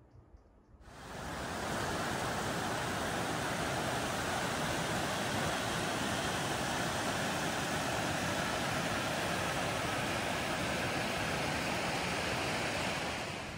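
Mountain creek cascading over granite rocks: a steady rush of water that fades in about a second in and fades out near the end.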